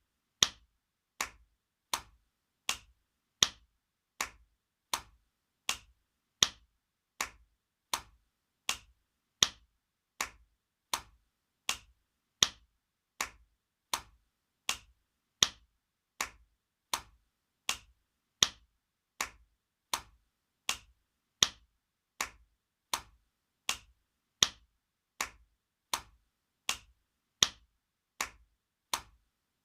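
Spanking sound effect: a steady series of sharp, single slaps, a little more than one a second, some hits louder than others.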